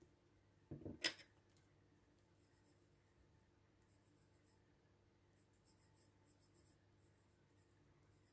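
Faint scratching of a graphite pencil sketching on paper, with a short rustle and knock about a second in.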